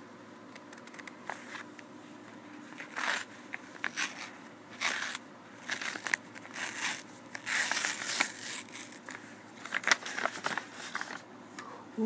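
Brown paper mailing envelope being torn open and crinkled by hand, in a series of irregular rips and rustles.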